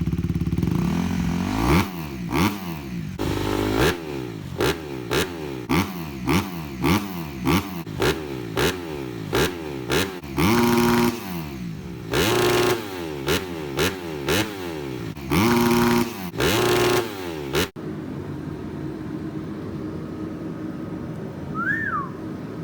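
Dirt bike engine revved in quick repeated blips, pitch rising and falling about twice a second, and held at high revs for about a second several times. The engine sound cuts off abruptly about three-quarters of the way in, leaving a quieter steady hum.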